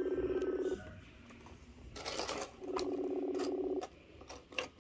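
Outgoing video-call ringing tone from a tablet's speaker: a buzzing tone sounding twice, about a second each, with about two seconds between, while the call waits to be answered. A few light taps and clicks of handling fall between and after the rings.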